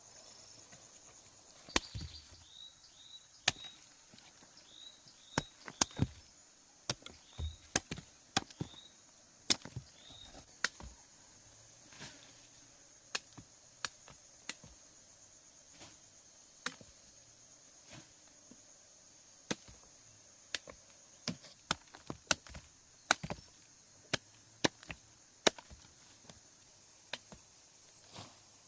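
Irregular sharp chopping strikes, dozens of them, quick clusters in the first ten seconds and sparser after. A steady high insect drone runs behind them.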